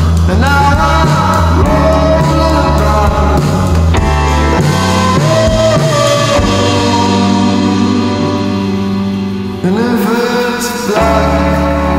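Indie rock song: singing with swooping notes over a full band. The bass drops out for a few seconds in the middle and comes back near the end.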